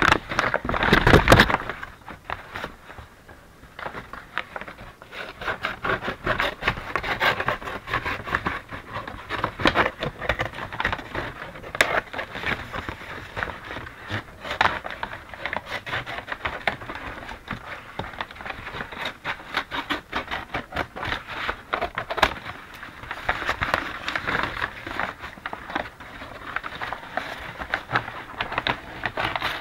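A large brown kraft paper bag being handled: stiff paper crinkling and rustling in uneven bursts, loudest about a second in.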